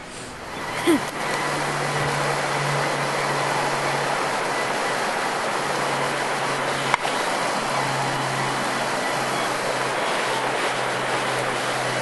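Steady rush of a fast-flowing river over rocks, with a single sharp click about seven seconds in.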